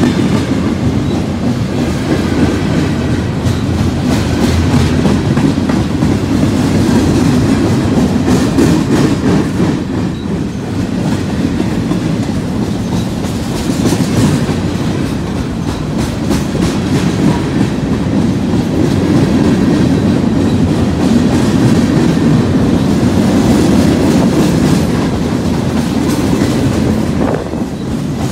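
Union Pacific freight train's cars rolling past close by, a steady rumble with repeated clacks from the wheels.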